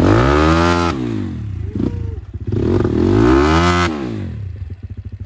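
Crossfire CX250R 250 cc single-cylinder dirt bike engine revved up twice, each rev rising and falling back, dropping to a slow, lumpy idle between the two and near the end, as it is worked over rocks.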